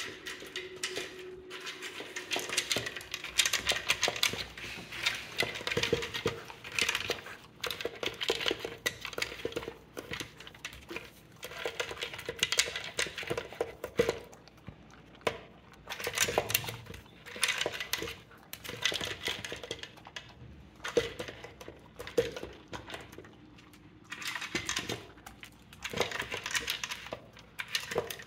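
A beagle eating from a plastic slow-feeder bowl: food pieces clicking and rattling against the plastic as it noses through the ridges, in bursts every second or two.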